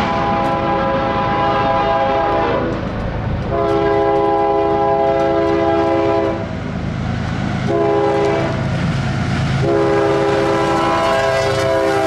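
CSX diesel locomotive's air horn sounding the grade-crossing signal as it approaches: two long blasts, a short one, then a long one, over the low rumble of the train.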